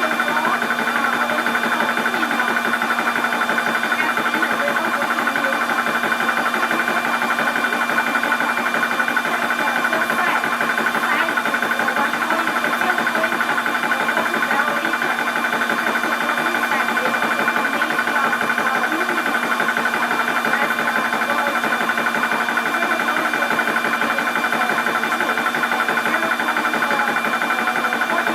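12-volt high-pressure PCP air compressor running steadily while filling an air cylinder, a constant mechanical hum with a fast, even rattle that does not change.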